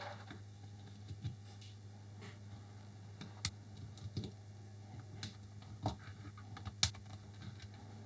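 Scattered light clicks and taps of hands and a screwdriver against the plastic housing of a DeWalt DCS355 oscillating multi-tool as its T15 Torx screws are undone, with a couple of sharper clicks about three and a half and seven seconds in. A faint steady low hum runs underneath.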